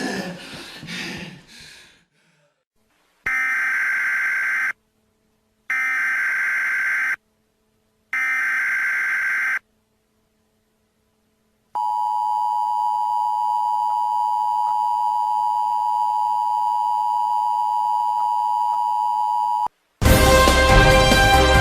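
Emergency broadcast alert: three buzzy data bursts of about a second and a half each, then a long steady two-pitch alert tone lasting about eight seconds. News theme music starts near the end.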